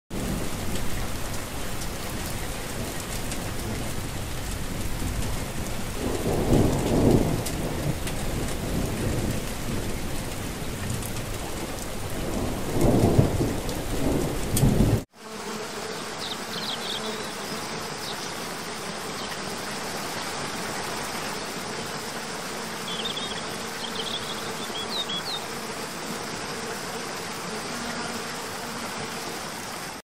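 Steady heavy rain with two low rolls of thunder. About halfway through it cuts off suddenly to a softer, even rain hiss, with a few brief high chirps.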